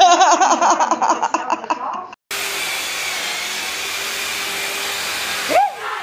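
A person laughing hard in quick pulses. After a cut, a loud steady rushing noise runs for about three seconds, stops suddenly, and a short cry breaks out.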